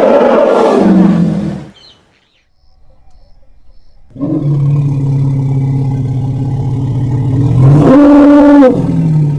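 Elephant calling: a loud call that breaks off about a second and a half in, then after a short pause a long, low, steady call that jumps up in pitch and loudness for about a second near the end before falling back.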